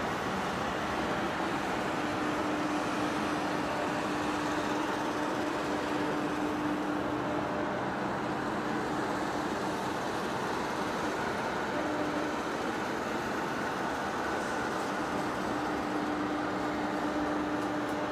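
Large industrial lathe's electric drive motor and gearbox running: a steady mechanical drone with a held hum, amid workshop noise.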